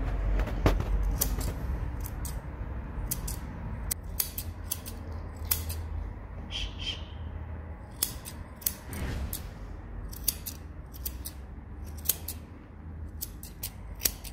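Grooming scissors snipping through a dog's fur in short, sharp snips, often in quick pairs, about two a second and unevenly spaced, over a low steady hum.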